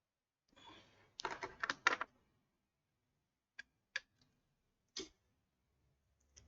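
Handling a laptop to power it on: a quick cluster of clicks and knocks about a second in, then three single clicks spread over the next few seconds.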